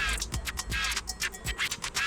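Background music with a steady, driving beat: regular low kick-drum thuds with crisp high ticks and short pitched notes between them.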